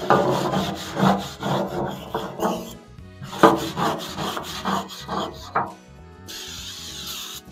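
A hand brush scrubbing the rusty steel deck of a bush hog rotary cutter in rough back-and-forth strokes, about two a second. Near the end, an aerosol can of brake cleaner hisses for about a second as it is sprayed onto the deck.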